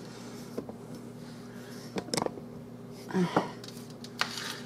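Quiet kitchen with a steady low electrical hum, broken by a few brief clicks and taps, the strongest about two seconds in, and a short murmur of voice about three seconds in.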